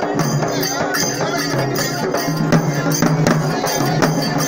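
Folk procession drumming: frame drums beaten with sticks in a fast, steady rhythm, with a held low tone underneath.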